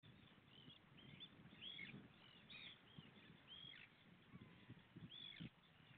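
Gulls calling repeatedly, short arched cries, faint over a low rumbling background.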